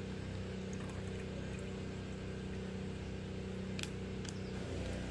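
Distant lawn mower engine running steadily, a neighbour's mowing. A couple of brief crinkles come about four seconds in as a foil packet is handled.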